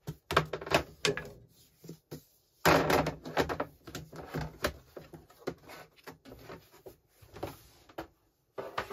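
Plastic draining board and chopping board being lifted, handled and set down on a kitchen sink and worktop: a run of knocks, scrapes and clatters, the loudest about three seconds in.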